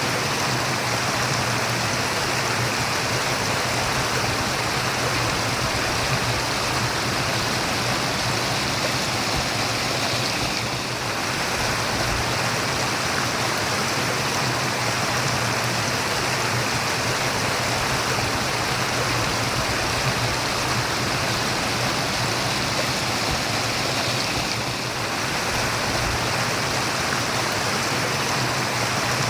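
Running water murmuring steadily, a continuous even rush with no breaks.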